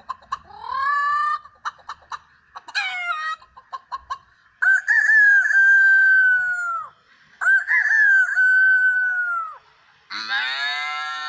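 A man imitating a chicken with his voice: a run of quick clucking clicks and short rising calls, then two long rooster crows, each rising, holding and trailing off. Near the end a deeper, drawn-out call begins, the start of a cow's moo.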